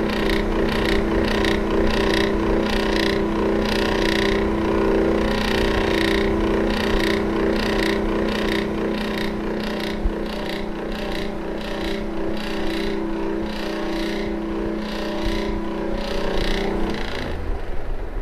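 Electric fan running: a steady motor hum with a rhythmic whooshing pulse, a little under two a second. Near the end the hum cuts off as the fan is switched off.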